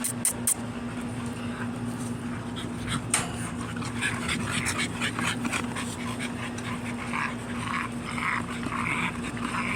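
A dog panting in quick, irregular breaths, with a few sharp clicks, over a steady low hum.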